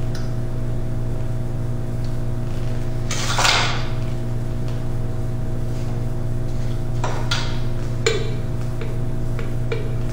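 Steady low electrical-sounding hum throughout, with a short metallic scrape about three and a half seconds in and a few light knocks near the end as a seal driver is worked by hand into the seal bore of a jet pump bowl.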